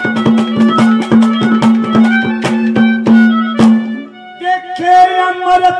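Live Indian folk music: fast, even drum strokes over a steady held low note, then about four seconds in the drumming stops and a long, slightly wavering held note begins.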